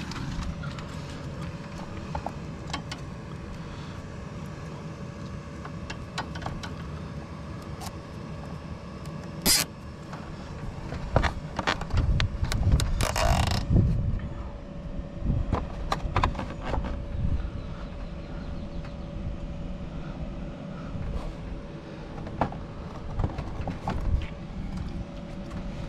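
Hands fastening a cable tie around a wire bundle on a wall bracket: small clicks and handling knocks, with a short zip about halfway through. A steady low rumble runs underneath.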